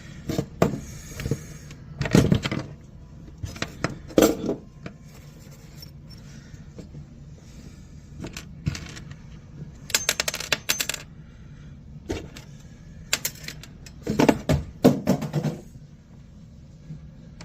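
Small metal parts clinking and clattering in short irregular bursts as screws are handled and worked with a hand screwdriver, with the loudest clusters of clatter about two seconds in, near ten seconds and toward the end.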